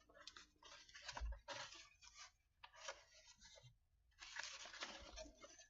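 Faint, intermittent rustling as a poster and its packaging are handled, in several short bursts with pauses between them.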